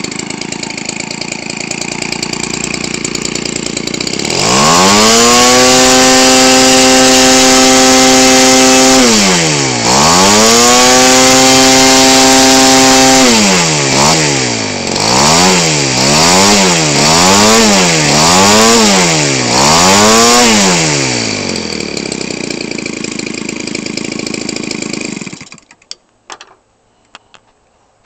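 Weedeater Featherlite 17cc two-stroke trimmer engine, converted for RC aircraft, idling, then revved sharply to a steady high speed twice. It is then blipped up and down several times in quick succession and settles back to idle, picking up instantly from idle each time. It falls silent about 25 seconds in.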